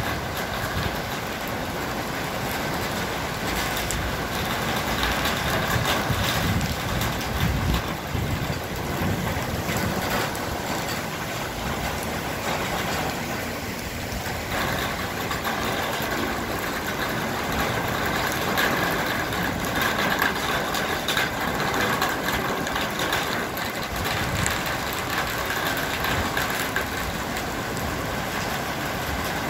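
Heavy rain pouring down steadily onto a street and parked cars: a dense, even hiss with no breaks.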